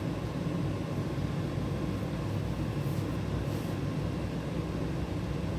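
Steady low droning hum with a faint background hiss.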